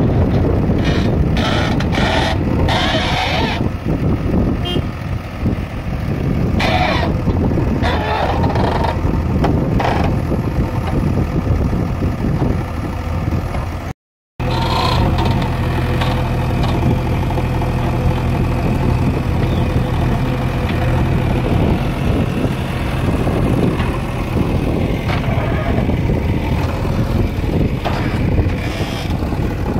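JCB 3DX backhoe loader's four-cylinder diesel engine running under load as the backhoe digs and dumps sand, with irregular rushes and clanks from the bucket and arm. The sound drops out for a moment about halfway through, then the engine carries on with a steadier, deeper hum.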